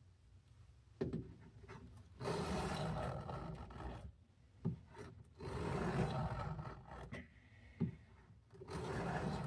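Knife blade of a Cattaraugus 225 Quartermaster drawn across a sharpening stone: three long grinding strokes, with a sharp click between strokes as the blade is set back down.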